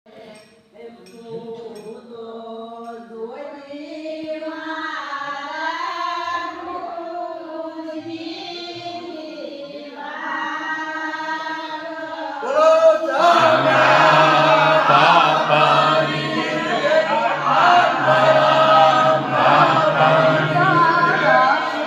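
Devotional chanting by a group of voices, the sung lines held and bending in pitch. About twelve seconds in it grows louder and fuller over a steady low drone.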